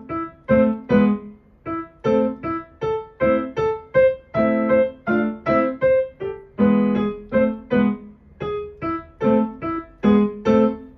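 Piano played as practice, one short detached note or chord after another with low and high notes sounding together, stopping just before the end.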